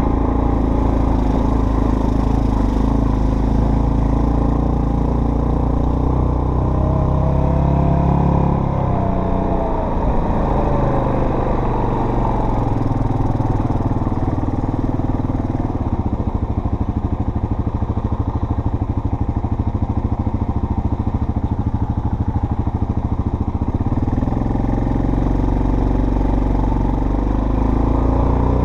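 Off-road vehicle engine running on the trail. The engine note rises and falls with the throttle about eight seconds in, drops to a lower, evenly pulsing run from about halfway through, and picks up again near the end.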